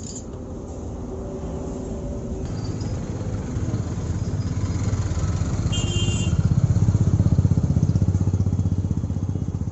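A motorcycle engine running with a rapid even beat, growing louder to a peak about seven seconds in and then easing off a little.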